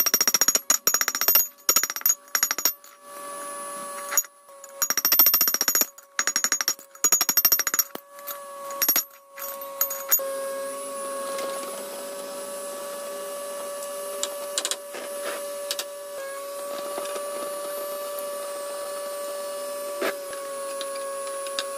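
Rapid hammer blows on a red-hot steel knife blade on the anvil, in several bursts over about the first ten seconds, with a steady hum underneath. After the hammering stops, the hum goes on alone with a few scattered clicks.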